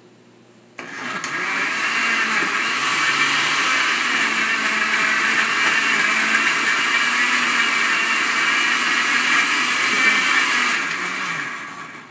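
Countertop blender switched on about a second in, running steadily for about ten seconds as it purées banana and almond milk into a smoothie, then winding down near the end.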